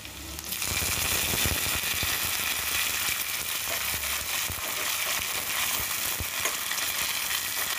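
Fresh curry leaves sizzling in hot oil in a steel bowl, together with the frying mustard seeds, urad dal and dried red chillies of a South Indian tempering. A spoon is stirring them. The sizzle jumps up about half a second in as the leaves hit the oil, then holds steady with scattered pops.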